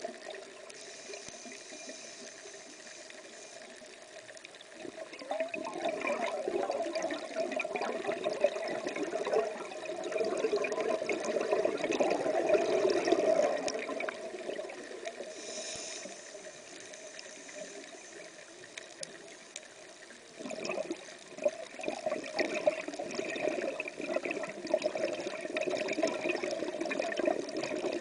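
Scuba diver breathing through a regulator underwater: a short high hiss of inhaling, then a long rush of exhaled bubbles, twice over.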